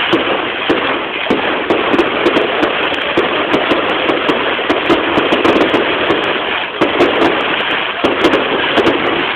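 Fireworks going off in a dense, continuous crackle: many small bangs in quick succession, with sharper cracks standing out several times a second.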